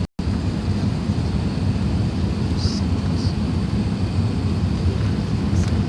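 Steady low rumble of an Airbus A380's cabin in flight, engine and airflow noise heard from inside the cabin. It cuts in after a split second of silence at the start, and two faint short high chirps come a little before halfway.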